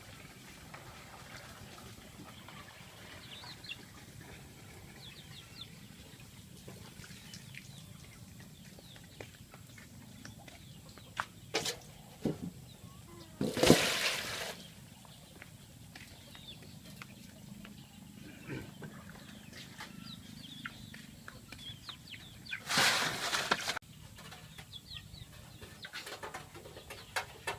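Birds chirping and chickens clucking in the background, broken by a few sharp clicks and two short, loud rushing noises, one about halfway through and one near the end.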